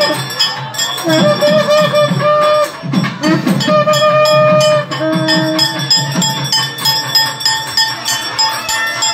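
Loud temple ritual music: long held, wavering melodic notes over fast, dense drum and bell strokes.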